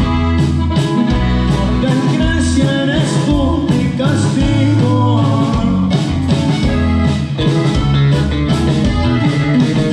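Live norteño band playing a song through the PA: drums keeping a steady beat under electric bass and guitar, with a voice singing.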